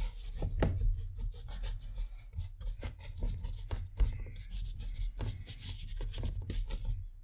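Mop brush scrubbing across rough watercolour paper in a dense run of quick, scratchy strokes.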